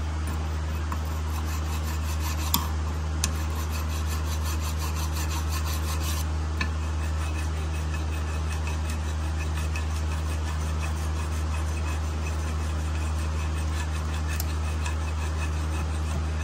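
A small hand file rasping steadily back and forth on a steel brake caliper bracket, scraping rust off the pad abutments down to clean metal so the pad clips and pads fit without binding. A steady low hum sits underneath, and there are a couple of faint clicks a few seconds in.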